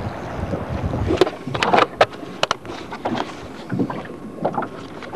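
A low steady rumble that cuts off about a second in, followed by scattered sharp knocks and clicks of handling in a small open fishing boat.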